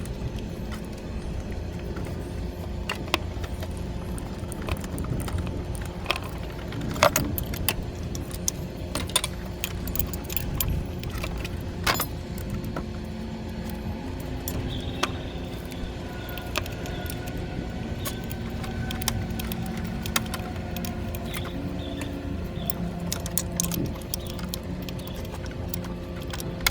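Metal hand tools and parts clinking and rattling against the forklift's hydraulic pump fittings, in irregular sharp clicks, over a steady low hum.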